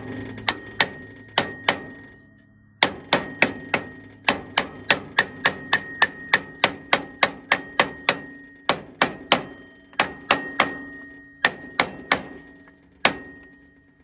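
Hammer striking a wood block held against the sawmill's clutch pulley, knocking the clutch onto the engine shaft: a long run of sharp taps, about three a second, with a faint metallic ring hanging between them. There are a couple of short pauses, and a last single blow near the end.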